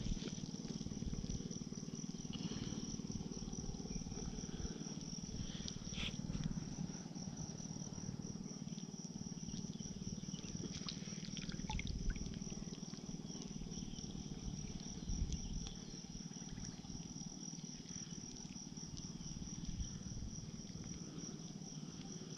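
Steady high-pitched insect trilling with a fine rapid pulse, over a low rumbling noise, with a few faint knocks.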